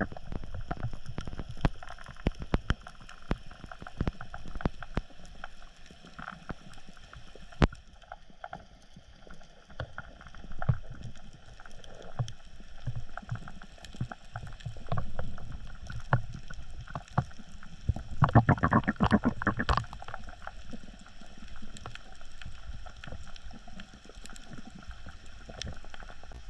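Underwater sound through a camera housing during a dive along a coral reef: a steady wash of water noise with many irregular clicks and knocks, and a denser run of knocking about 18 seconds in.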